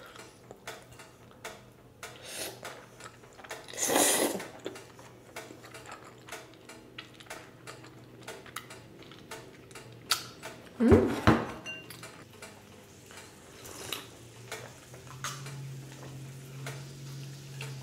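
An old electric grill clicking over and over, with chopsticks tapping on a ceramic bowl and noodles being eaten. There are a couple of louder eating noises in the middle.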